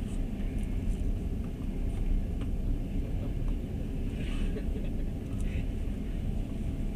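Passenger train running, heard from inside the carriage: a steady low rumble of wheels on the rails, with a few faint clicks.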